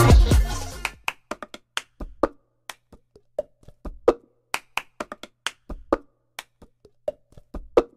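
A string of sharp, uneven taps or clicks, roughly two or three a second, some with a short hollow wooden ring, against dead silence. The tail of the intro music cuts off in the first second.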